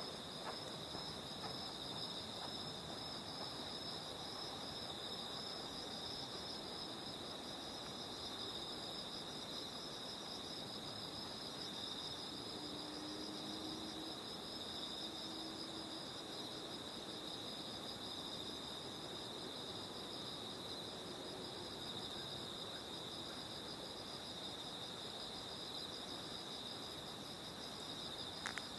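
Autumn night insects, crickets among them, trilling steadily in a continuous high-pitched chorus that sounds like two kinds of song at once.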